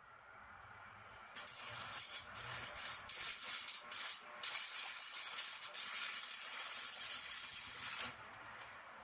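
Stick-welding arc from a Miller Thunderbolt 225 transformer welder. It strikes about a second and a half in and runs with a steady crackling hiss, with a few brief dropouts at first. It cuts off suddenly about a second before the end.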